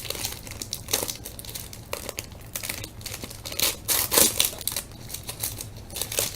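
A 1998 Bowman Chrome football card pack's wrapper being torn open and crinkled, in irregular spells of crackling a second or so apart.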